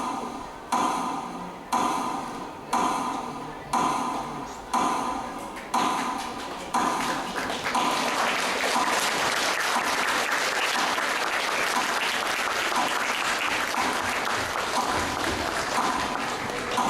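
A ringing bell-like tone struck about once a second, each strike dying away, as the song's accompaniment ends; about seven seconds in, audience applause starts and goes on steadily while the strikes continue faintly underneath.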